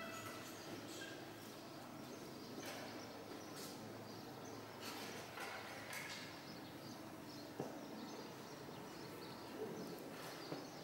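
Faint room tone in a quiet church, with scattered soft rustles and small knocks and one sharp click about seven and a half seconds in.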